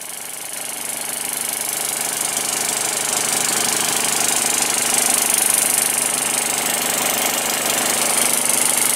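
Gas-engine-driven transfer pump on a fertilizer truck running steadily while it pumps liquid nitrogen fertilizer into a tank, growing louder over the first few seconds.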